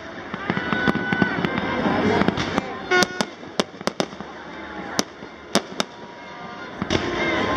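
New Year's fireworks and firecrackers going off all around: irregular sharp bangs and crackling, the loudest bang about three seconds in.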